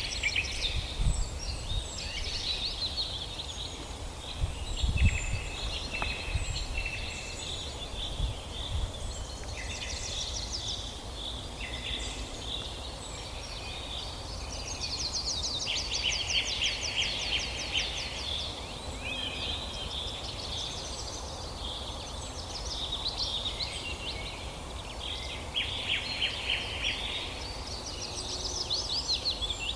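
Several birds singing and calling at once, with overlapping chirps and rapid trills, over a steady low rumble.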